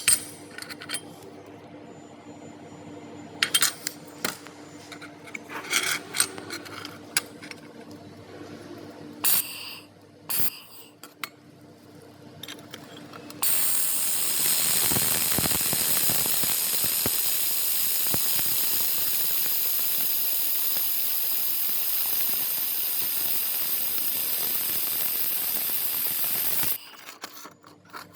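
A few sharp metallic clicks and clanks over a low hum, then a handheld laser welder starts with a loud, steady hiss that holds for about thirteen seconds before cutting off.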